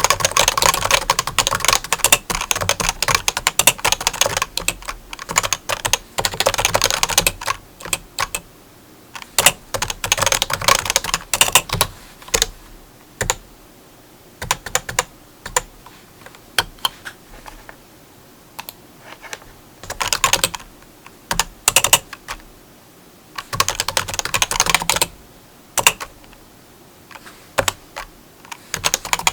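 Typing on a keyboard: rapid runs of keystrokes lasting a few seconds each, broken by short pauses with only a few scattered clicks.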